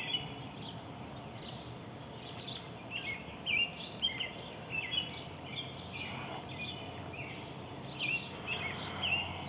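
Songbirds chirping in runs of short, quick high notes, with a lull partway through, over a steady low outdoor background noise.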